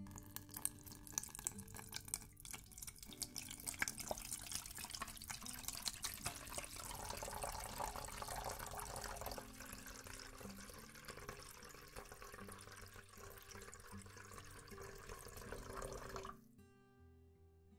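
A stream of water pours and splashes into a hammered metal yukihira saucepan as the pan fills. The pour stops abruptly about sixteen seconds in.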